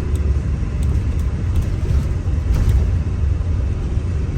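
Steady low rumble of a Sound Transit route 574 bus in motion.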